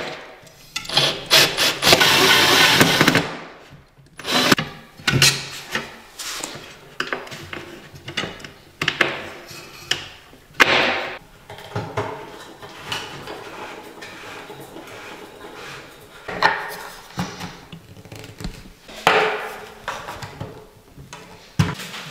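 Cordless drill whirring in one long run as it drives a screw into a flat-pack kitchen cabinet's steel rail. After that comes a string of short knocks, clunks and scrapes as cabinet panels and parts are handled.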